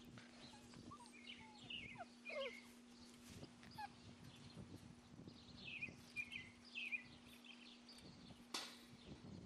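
Faint short high-pitched animal chirps and squeaks, each falling in pitch, coming in scattered groups over a faint steady low hum, with one sharp click near the end.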